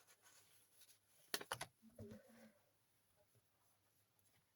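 Near silence, broken about a second and a half in by a few quick rustles and taps of paper being handled as journal pages and tags are moved.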